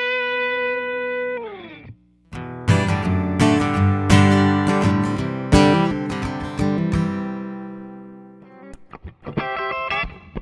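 Electric guitar played through a compressor pedal. A held note slides down in pitch and stops. Then several strummed chords ring out and slowly fade, and quick picked notes follow near the end.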